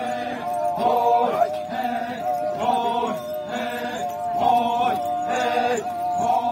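A group of voices chanting a Naga folk dance song: a short phrase repeated in a steady rhythm a little under once a second, over a continuously held note.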